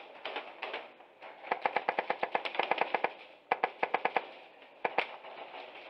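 Airsoft rifles firing rapid full-auto bursts of about ten shots a second: a few shots at the start, then two longer bursts and a single shot near the end, in an indoor arena.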